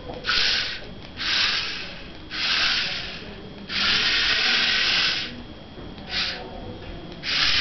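Small DC motors of an RF-remote-controlled four-wheel robot car whirring in six short bursts as the car is driven and stopped. The longest burst lasts about a second and a half, a little before the middle.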